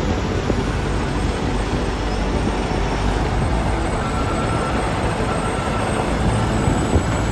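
A metro train running, a steady rumbling noise with a faint thin tone coming and going in the second half.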